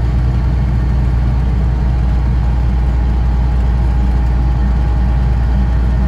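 Steady low engine drone and road noise of a vehicle driving at low speed, heard from inside its cab.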